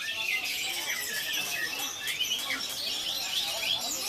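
Many caged songbirds singing at once: a dense, steady chorus of overlapping whistles, trills and chirps.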